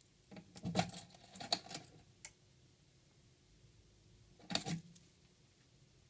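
A ring of metal keys jangling while a key is worked into a TEST/RESET key switch, with a run of sharp metallic clicks over the first couple of seconds. A second short burst of jangling and clicks comes about four and a half seconds in.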